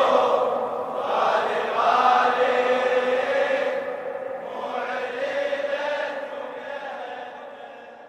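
Wordless chanted vocals of a Shia latmiya, long wavering held notes without instruments, fading out toward the end.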